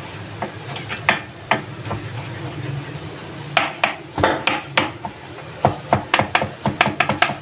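Chef's knife chopping a soft, peeled roasted tomato on a plastic cutting board: a few scattered chops at first, then a quick run of chops, about five a second, in the last couple of seconds.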